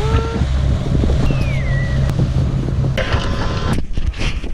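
A motor cruiser's engine drones steadily while under way, with wind buffeting the microphone. The drone cuts off abruptly near the end.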